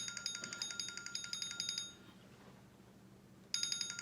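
Electronic timer alarm beeping in rapid pulses, a burst of about two seconds, a pause, then starting again near the end: a timer going off, signalling that the five-minute time limit is up.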